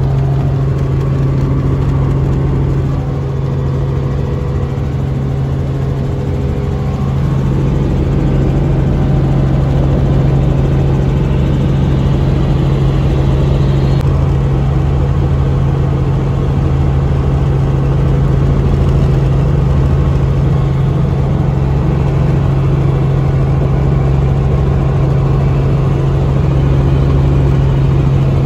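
Helicopter in flight heard from inside the cabin: a steady, loud drone of rotor and engine with a constant low hum, a little fuller in the low end from about seven seconds in.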